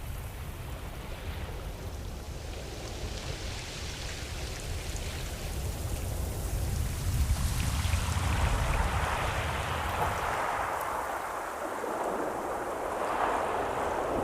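Ocean waves washing in, a steady rush that swells about halfway through, eases, and swells again near the end.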